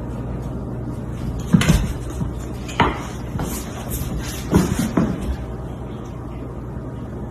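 A few short knocks and bangs over a steady background hum, the loudest about a second and a half in and near three and five seconds in.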